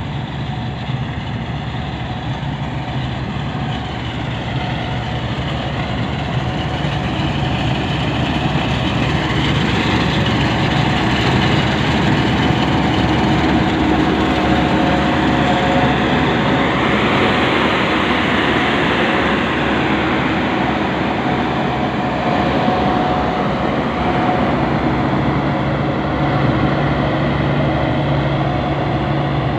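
Combine harvester cutting rice, its diesel engine and threshing machinery running with a steady, loud drone. It grows louder over the first ten seconds or so as the machine comes up close.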